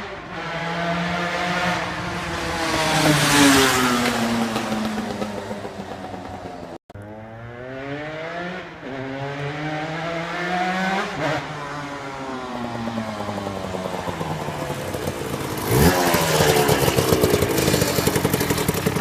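Motorcycle engine revving as it rides along the road, its pitch climbing and dropping again and again through the gear changes, loudest near the end. The sound cuts out for a split second about seven seconds in.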